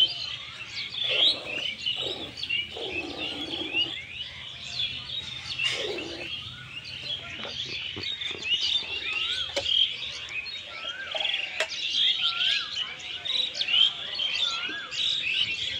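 Many small birds chirping and twittering continuously, a dense chorus of short overlapping calls, with a few brief soft rushing sounds in the first few seconds and again about six seconds in.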